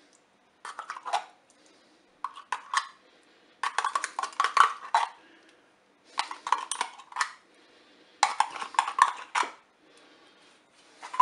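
A spoon scraping tomato paste out of its container and clinking against it and the cooking pot, in five or six short bouts of scrapes and taps with pauses between.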